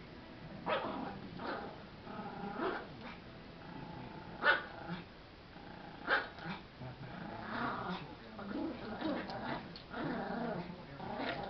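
A Schnauzer and a Yorkshire terrier growling at each other as they play tug-of-war over a plush toy. The growling is rough and irregular, with several short, sharp barks breaking through.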